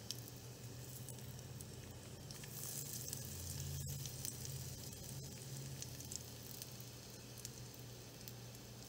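Cumin seeds and dried red chilies sizzling in hot oil in a pressure cooker, a steady hiss with fine crackles that grows louder for a second or so about three seconds in.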